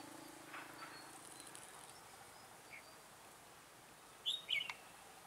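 Two quick chirps from a red-whiskered bulbul about four seconds in, over faint insect buzzing.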